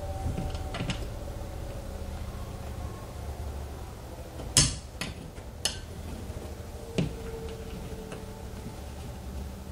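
Small bubble level and metal shelf bracket being handled against a wall: a few sharp clicks and light knocks, the loudest about four and a half seconds in, then two more about a second apart, over a low steady hum.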